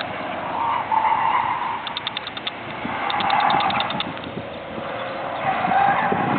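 Subaru WRX STI's turbocharged flat-four revving up and easing off repeatedly as the car is driven hard. A quick run of sharp ticks sounds twice near the middle.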